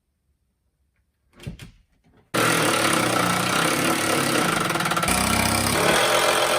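A few light knocks, then about two seconds in a loud power tool starts abruptly and runs steadily.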